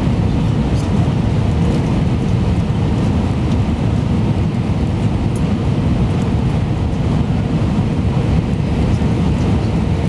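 Steady cabin noise inside an Airbus A320-200 descending on approach to land: a loud, even low rumble of the engines and rushing air, with a faint steady hum.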